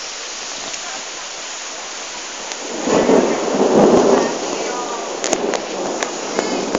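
Windstorm with a steady rush of rain, swelling into a loud gust about three seconds in. A few sharp knocks follow near the end.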